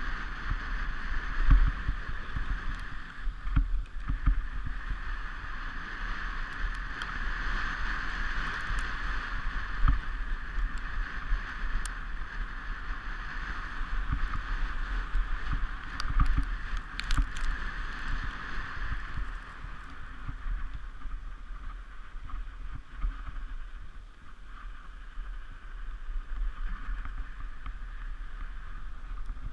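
Sled runners sliding fast over a packed snow track: a steady hiss with frequent low thumps and knocks from bumps and wind buffeting on the camera, the hiss easing after about two-thirds of the way through.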